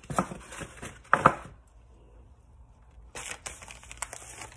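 Handling noise while carrying things with full hands: two sharp knocks, the louder about a second in, then after a short pause a stretch of rustling with small clicks.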